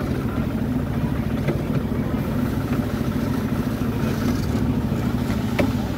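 Miniature railway train running steadily, its engine giving an even drone, with a few light clicks from the ride.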